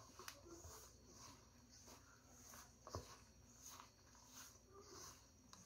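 Very faint soft rubbing strokes, about two a second, of a hand working margarine into flour in a stainless steel bowl, with one light tap about three seconds in.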